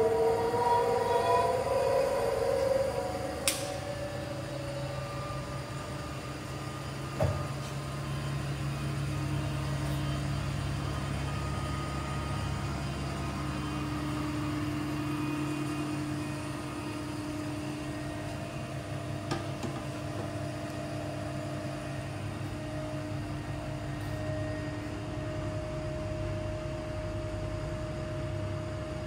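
Polar 155 ED guillotine paper cutter running: a steady machine hum, with a few single sharp clicks.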